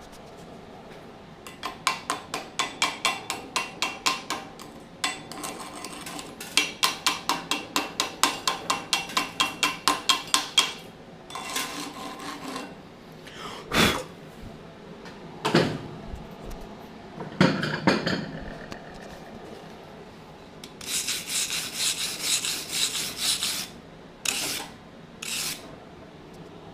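Steel weld bead on heavy plate being cleaned by hand: rapid back-and-forth scraping strokes, about three to four a second, in two long runs, then a few separate sharp knocks and scrapes, and another dense burst of scraping near the end.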